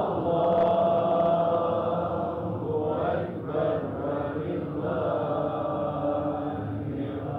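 Islamic religious chanting: a voice sings long, held melodic phrases, a new phrase beginning about three seconds in.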